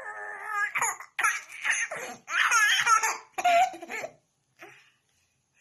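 A young child laughing and squealing in a run of high-pitched bursts that stops about four seconds in, with one or two faint short sounds after.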